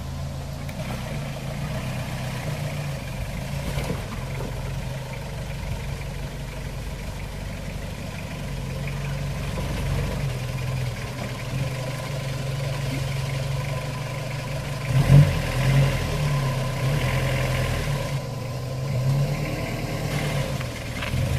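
Toyota four-wheel drive's engine running steadily at low revs as it crawls up a steep rocky step, with a couple of brief loud surges about fifteen seconds in.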